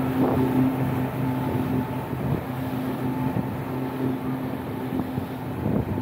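Speedboat engine running steadily as it tows a parasail, a constant hum, with wind buffeting the microphone.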